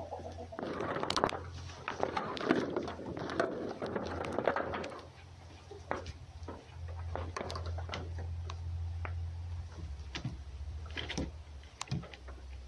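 Red fox and cat play-fighting on a wooden board: close scuffling and scratching of fur and claws, thickest in the first few seconds, then scattered taps and knocks as they paw at each other, over a steady low hum.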